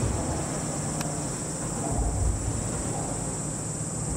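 Cicadas droning steadily on one high pitch, over a low, uneven rumble that swells about two seconds in.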